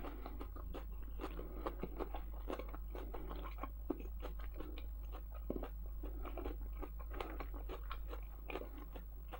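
A person chewing food close to the microphone: many small, irregular mouth clicks and soft crunches.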